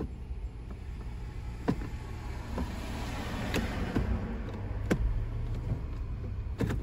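Toyota FJ Cruiser's 4.0-litre V6 idling, heard from inside the cabin, while the automatic gear selector is moved through its gears, with a few sharp clicks as it passes between positions. The transmission is being cycled through the gears to circulate freshly added fluid.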